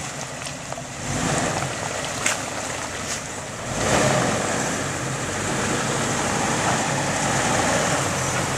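Lifted Jeep Wrangler TJ's engine running under load as it crawls over rocks, getting louder about a second in and again about four seconds in.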